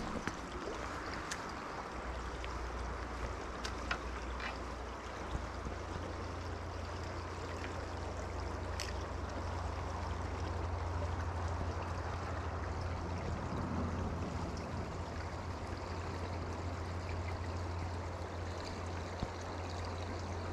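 Steady rush of a small river flowing over shallow riffles, with a few faint clicks.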